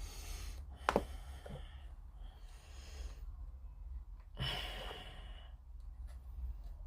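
A person sighing, breathing out three times, with a sharp click just before a second in.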